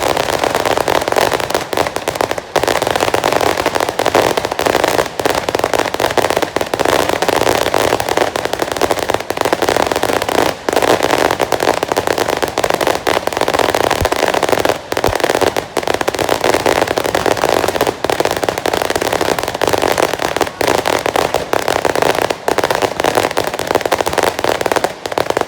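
Fireworks display: a loud, dense, unbroken barrage of crackling and popping bursts that cuts off just before the end.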